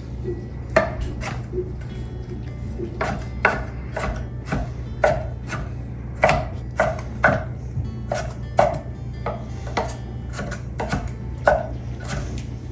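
Kitchen knife rough-chopping pickles on a cutting board: about twenty sharp chops, roughly two a second, with a short pause after the first two.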